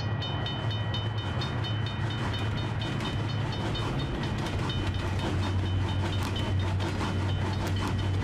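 Train sound effects: a level-crossing bell ringing in short, even strokes about three times a second over a steady low rumble from the passing steam train, which grows a little stronger about halfway through.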